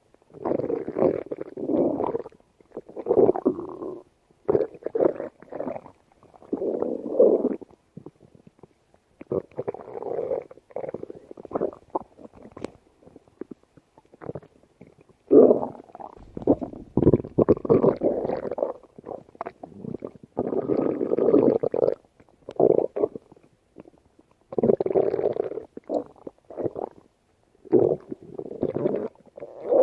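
Human stomach growling in a long series of irregular rumbles and gurgles, each from about half a second to two seconds long, with short pauses between them.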